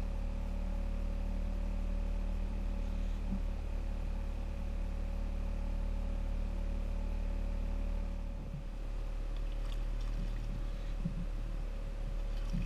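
A steady low mechanical drone with a constant hum, like a motor running. It changes slightly about eight and a half seconds in, and a few light knocks follow in the last few seconds.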